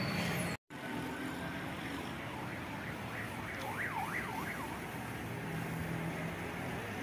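Steady noise of idling coaches in a yard, cutting out for an instant just after the start; around the middle a short warbling, siren-like tone rises and falls about four times.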